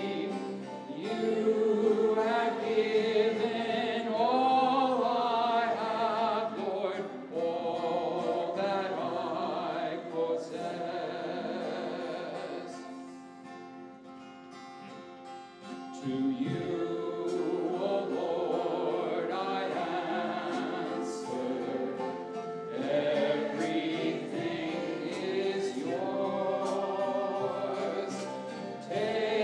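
A group of voices singing a hymn together, accompanied by strummed acoustic guitar and flute. The music drops to a quieter stretch about halfway through, then the singing comes back in at full level.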